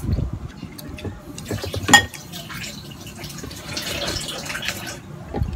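A sharp ringing clink of a glass or dish about two seconds in, then water running into a container for a few seconds.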